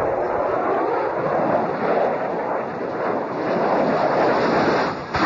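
Roar of a Sukhoi Su-27 fighter's twin jet engines sweeping past at ground level close by, a loud rushing noise that swells over the last couple of seconds and peaks sharply near the end.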